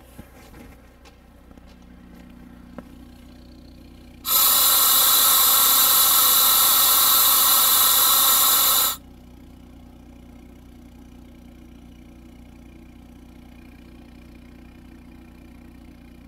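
Locomotive air brake valve venting brake pipe air for a brake application (a set) during an air brake leakage test: a loud, even hiss starts abruptly about four seconds in, holds steady for about five seconds, then cuts off. A steady low hum from the portable air compressor charging the brake system runs underneath.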